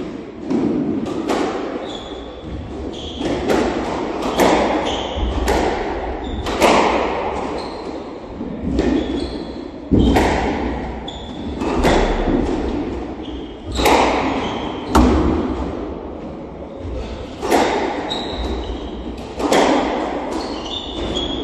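A squash rally: the ball knocks sharply off rackets and walls every second or two, ringing in the enclosed court. Short high squeaks of shoes on the wooden floor fall between the shots.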